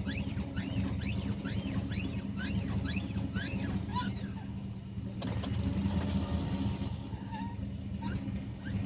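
Repeated high squeaks, each sliding down in pitch, about two a second, stopping a little after four seconds in, over a steady low hum.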